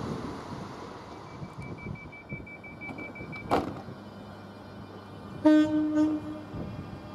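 Train door-closing warning: rapid high beeping for about two and a half seconds, ending in a sharp knock as the doors shut. A short horn blast from the train follows near the end, the loudest sound, over a low rumble of the train standing at the platform.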